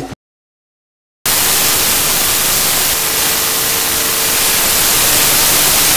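A second of dead silence, then loud, steady static hiss: noise from a corrupted stretch of the recording.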